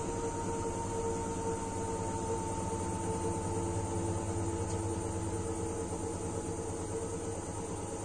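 Front-loading washing machine spinning a load of laundry: a steady whirring hum from the motor and drum with a high whine above it.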